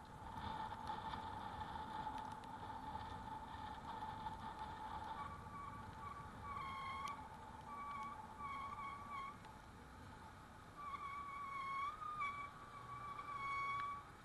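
A high whine from the e-bike: a steady tone for about the first five seconds, then shorter broken whines at a slightly higher pitch that waver a little, over low road rumble.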